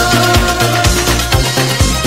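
Electronic dance music with a steady four-on-the-floor beat and pulsing bass, from a mixed 1980s DJ set.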